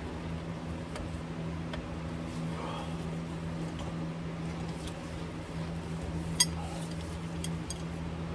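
Scattered metal clicks and taps of a wrench on a semi truck's transmission drain plug as it is worked loose, over a steady low hum. The sharpest click comes about six seconds in.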